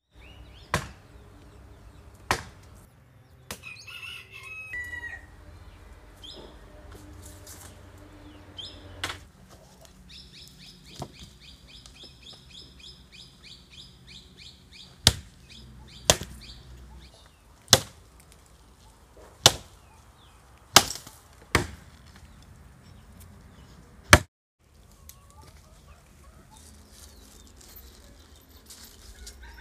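Axe chopping dry firewood: about ten sharp single chops a second or more apart, most of them in the second half, with birds calling in between.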